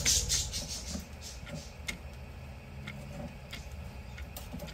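Irregular light clicks and ticks of 3D-printer filament being tugged back and forth through the tubes of a filament buffer, over a low background rumble.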